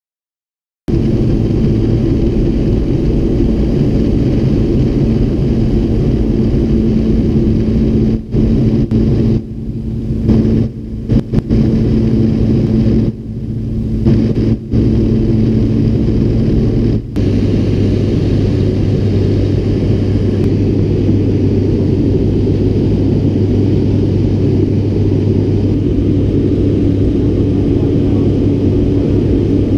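Floatplane's piston engine and propeller at high power through takeoff and climb, heard inside the cabin: a loud, steady drone. Several brief cut-outs fall between about 8 and 17 seconds in, and after them the drone settles onto a lower tone.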